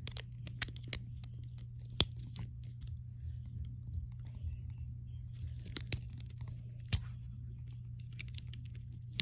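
Small plastic Lego pieces being handled and pressed together: light rattling and ticking with a few sharp snaps, the loudest about two seconds in and near seven seconds, over a steady low hum.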